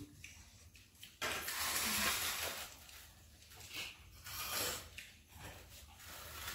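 Eating sounds of people taking rice by hand from steel plates. Two spells of soft hissy noise: one starts sharply about a second in and lasts a second or so, the other comes a little after four seconds in.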